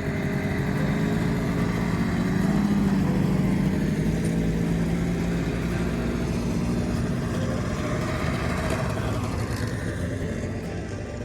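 Snowmobile engine running steadily as it rides along, its pitch shifting a little with the throttle.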